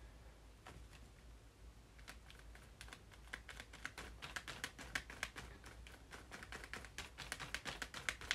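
Light, rapid tapping of a paint-loaded sponge being dabbed through a stencil onto card, several taps a second, starting about two seconds in.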